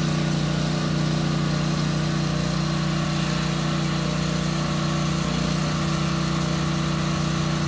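An engine running steadily at a constant speed, giving an even hum that does not change in pitch or loudness.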